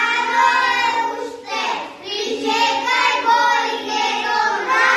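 Young children singing a song together in long, held notes, with a short break in the singing about two seconds in.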